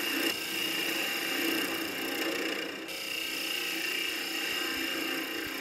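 Wood lathe running while a gouge cuts the inside of a spinning green fir goblet cup: a steady motor hum with the continuous scraping hiss of the tool shaving the wood.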